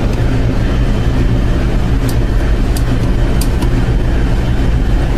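Loud, steady drone of running machinery with a low hum, the background noise of a ship's engine room, with a few faint light clicks about two to three and a half seconds in.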